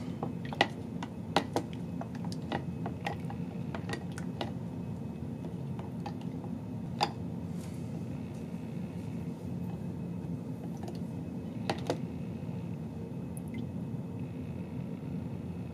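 Plastic lift-out basket of a pickle jar raised out of isopropyl alcohol and set back in: scattered light plastic clicks and faint liquid dripping over a steady low hum.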